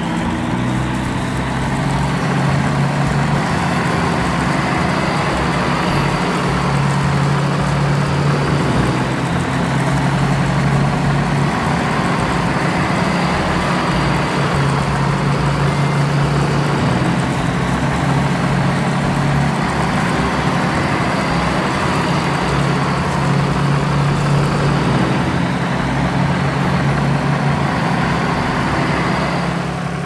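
Combine harvester and tractor engines running steadily: a loud, even low drone with a noisy mechanical layer over it.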